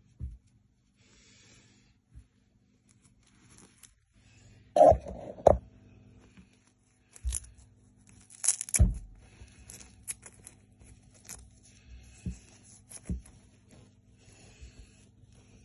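Handling noise of a plush toy being turned and its fabric overalls tugged on a wooden tabletop: fabric rustling and scraping with several sharp knocks, the loudest about five seconds in and again near nine seconds. A faint steady low hum sits underneath.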